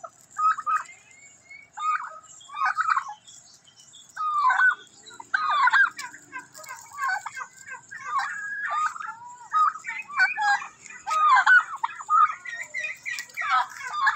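A flock of domestic turkeys gobbling and calling: short, rapid calls from several birds, overlapping and coming thicker from about four seconds in. The toms are strutting with fanned tails, in display to each other.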